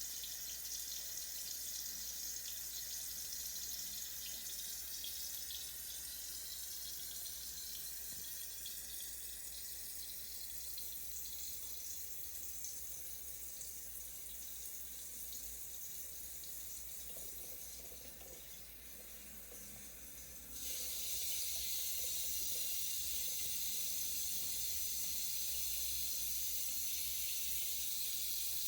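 Shower head running, a steady spray of water. It fades a little over the first twenty seconds, then suddenly gets louder and stays that way.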